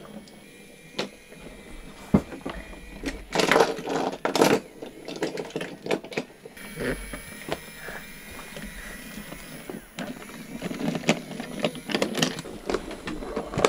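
Toy train pushed by hand along a wooden railway track, its wheels and the track pieces clicking and rattling on a wooden floor in irregular knocks.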